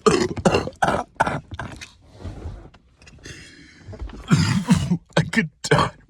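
A man coughing and clearing his throat in a run of short hacks, bringing up phlegm, with a drawn, raspy breath in the middle before another burst of hacking.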